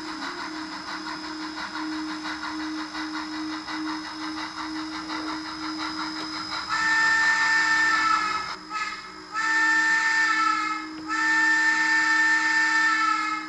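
Model steam locomotive sound: a steady rhythmic chuffing over a motor hum while it runs, then, about seven seconds in, three long blasts of a chime steam whistle sounding for departure.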